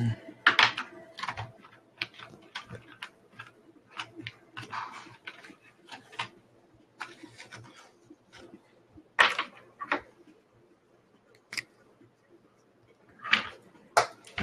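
Trading cards being handled: irregular rustles, flicks and clicks, with a louder one about nine seconds in and a few more near the end.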